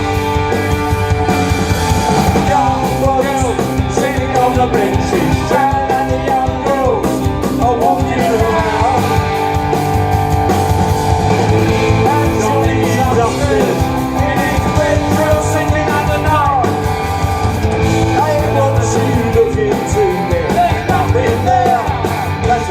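Live punk rock band playing at full volume: electric guitars, bass and drums, with bending guitar lines over a steady backing.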